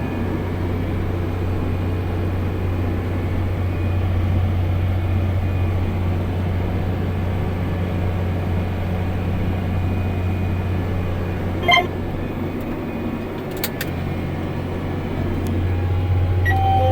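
Tractor engine running steadily under planting load, heard from inside the cab as a low drone. A short, sharp tone sounds about twelve seconds in, followed by a couple of faint clicks.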